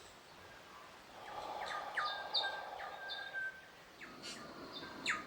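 Small birds chirping, with short, quick downward-sweeping calls repeated throughout. About a second in, a soft breath lasting a couple of seconds.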